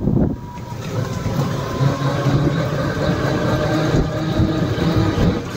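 Engine of the small open vehicle being ridden, running steadily with an even, pitched hum as it drives along the road, heard from on board.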